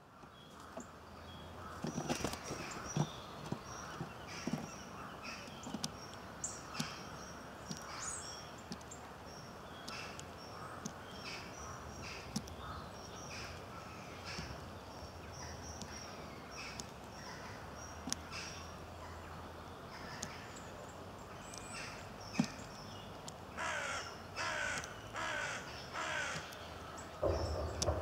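Eurasian jay giving harsh, rasping screech calls, four in quick succession near the end, over scattered high chirps of small birds.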